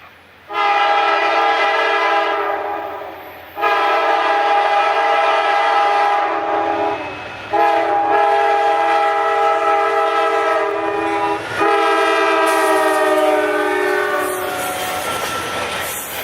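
Amtrak passenger locomotive's air horn sounding four long blasts. The last blast drops in pitch as the locomotive passes, and the train then rolls by with wheel clatter.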